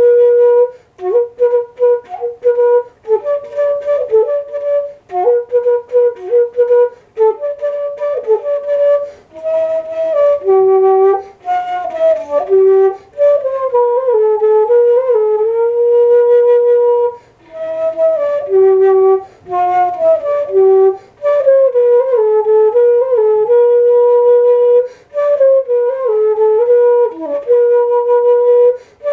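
Music: a single melody on a flute-like wind instrument, held notes and quick runs with short breaks between phrases.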